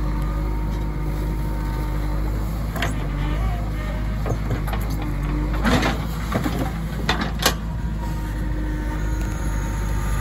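JCB 3DX backhoe loader's diesel engine running steadily under working load as the backhoe arm digs and swings the bucket, with a few sharp knocks in the middle.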